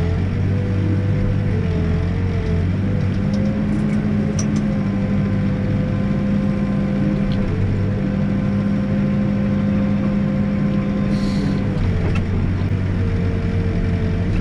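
Backhoe diesel engine and hydraulics running steadily while digging, with a whine that rises a little in pitch about two and a half seconds in and drops back near the end.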